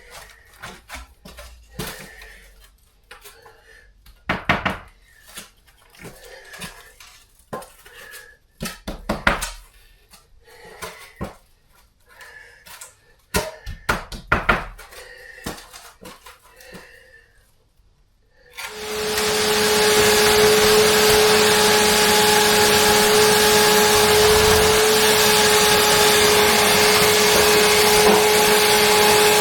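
Scattered knocks and clatters of things being handled. About two-thirds of the way through, a vacuum cleaner switches on and runs steadily with a constant whine.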